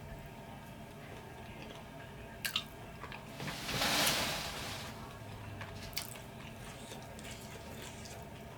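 A person chewing and biting into chicken wings close to the microphone, with a few sharp wet smacks. A louder hissing swell lasts about a second, starting about three and a half seconds in.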